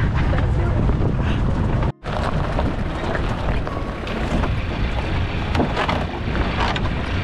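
A vehicle engine running steadily, with wind buffeting the microphone; the sound cuts out briefly about two seconds in.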